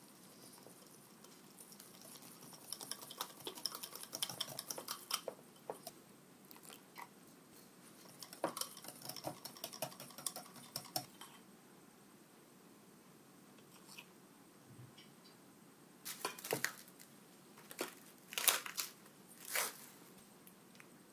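Food being handled in a kitchen: spells of light rustling and clicking, then three or four louder scraping swishes near the end.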